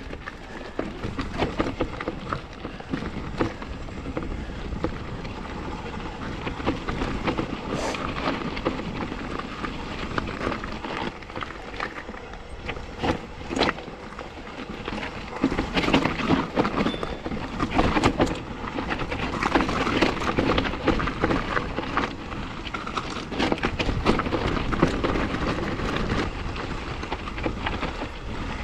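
Santa Cruz mountain bike clattering down a steep, rocky trail: tyres rolling over rock with irregular knocks and rattles from the bike, louder and busier through the second half.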